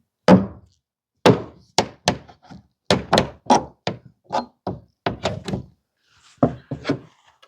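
Sharp knocks on a nailed wooden batten, about fifteen blows at an uneven pace with a short pause near the end, as it is worked loose from board siding.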